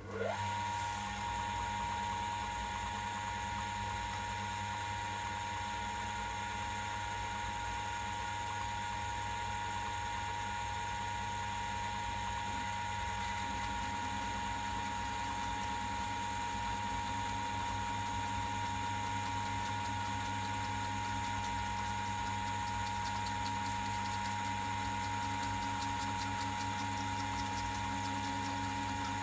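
An old metal lathe started up: a quick rising whine as it spins up, then the lathe running steadily with its chuck turning, an even hum under a steady whine.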